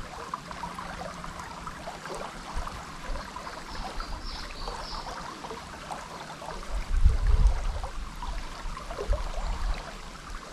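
River water flowing and trickling steadily, with a brief low rumble about seven seconds in and another near nine seconds.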